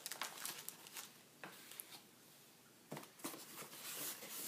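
Faint rustling and crinkling of a plastic-bagged manual being handled, with a few light taps and scrapes of cardboard packaging. The handling noise grows busier near the end as the cardboard box is picked up.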